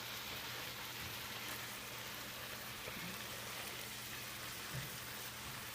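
Ground turkey, onions and peppers frying in a pan, a steady sizzling hiss, with a low steady hum underneath.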